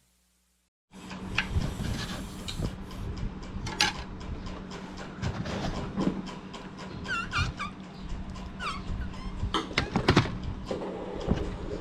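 After about a second of silence, a meal's clatter of spoons and dishes, many small clicks and knocks over a steady low hum, with a few short high chirps about seven and nine seconds in.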